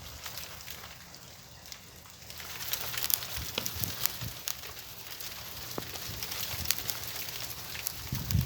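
Hailstones falling and hitting hard surfaces: a dense, irregular patter of sharp ticks and cracks over a steady hiss, picking up about two seconds in.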